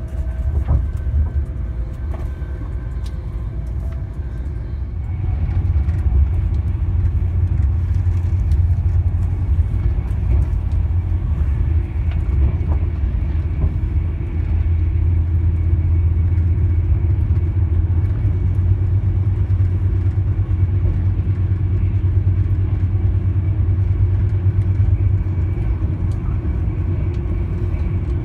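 Steady low rumble of a Class 390 Pendolino electric train running along the line; it grows louder about five seconds in.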